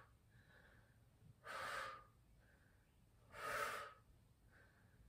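A woman breathing hard from exertion during a Pilates criss-cross exercise: two forceful, hissy exhalations about two seconds apart, with fainter breaths between them.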